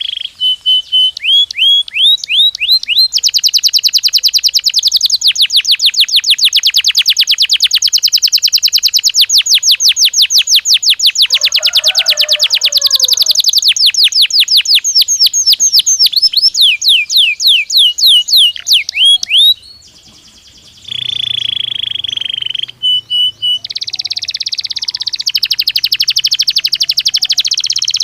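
Domestic canary (Belgian canary) singing in long, rapid trills of repeated sweeping notes. The song breaks off briefly a little past halfway, then resumes with a held steady whistle and another fast trill.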